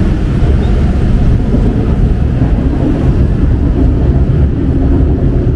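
Steady low rumble of city street traffic, heavy in the bass, with no breaks.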